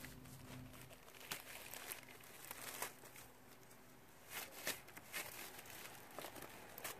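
Clear plastic mulch sheeting crinkling faintly as gloved hands tuck and adjust it under an elastic band, in scattered soft rustles and crackles.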